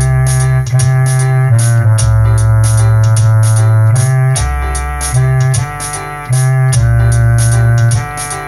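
Electronic keyboard playing a slow gospel hymn instrumentally: sustained chords over a bass line that changes every second or two, with a steady drum-machine beat of light hi-hat ticks.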